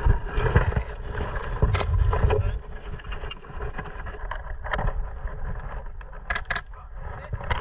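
Airsoft gun firing scattered single shots, then a quick cluster of shots near the end, over a low rumble of wind and handling noise on the microphone for the first couple of seconds.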